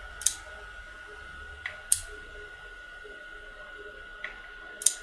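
ShI-11 rotary stepping switch being pulsed: sharp metallic clicks as its electromagnet pulls the armature in and the return spring drops it back, the driving pawl stepping the ratchet wheel one tooth each time. The louder clicks come about every two seconds, several with a fainter click just before.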